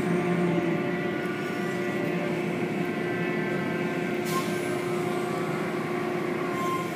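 Automatic tunnel car wash running: a steady machine hum from its motors and pumps over a hiss of water spray.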